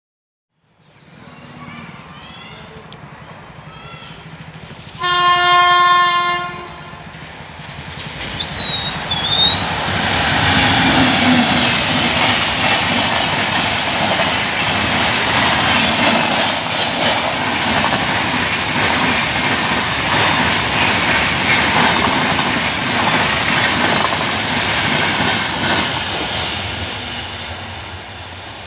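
A locomotive sounds one long horn blast as the train approaches. Then a fast express train passes close by with a loud rumble and rhythmic wheel clatter over the rail joints, fading near the end.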